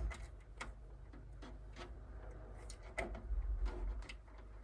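Irregular small clicks and taps from handling speaker wires and pushing them into the terminals on the back of a mini system stereo, with a heavier knock about three seconds in.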